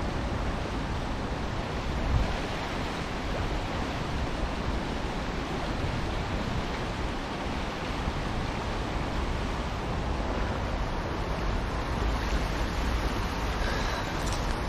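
Steady rush of a flooded chalk stream's fast water churning white over a drop.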